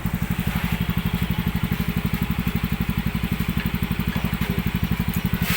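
Yamaha Mio 125 scooter's single-cylinder four-stroke engine idling steadily with an even beat of about a dozen firing pulses a second. It has just been started after its valves were lapped to cure low compression, and the idle now holds.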